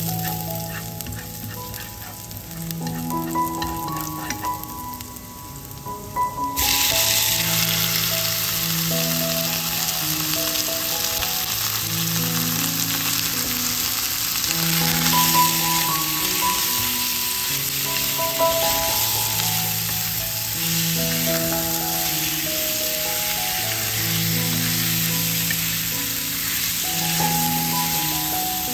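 Minced shallots sizzle gently in hot oil in a frying pan as a spatula stirs them. About six and a half seconds in, the sizzle turns suddenly loud and stays loud as pieces of pork leg are stir-fried in the oil. A soft background melody plays throughout.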